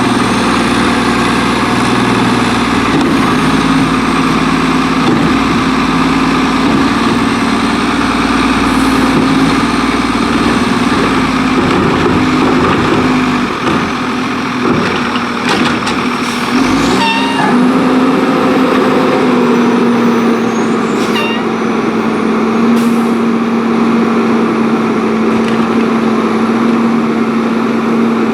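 Autocar WX garbage truck's diesel engine running at steady raised revs. Its pitch drops and climbs back about 17 seconds in, and a few sharp knocks sound around then.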